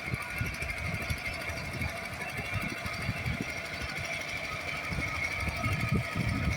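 An engine running with a rapid, uneven low knocking and a steady high whine, growing louder near the end.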